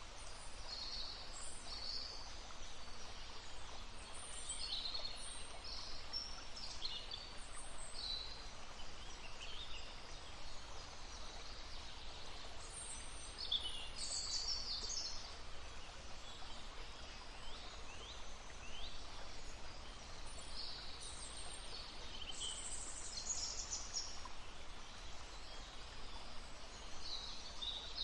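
Small songbirds chirping and trilling in short, high bursts every few seconds over the steady rushing of a babbling brook.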